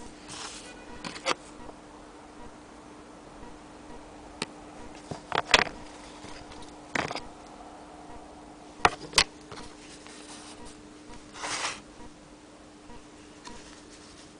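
Handling noise: scattered clicks, taps and one brief rustle as the stitched cloth and camera are moved about, over a steady low hum. No sewing machine is running.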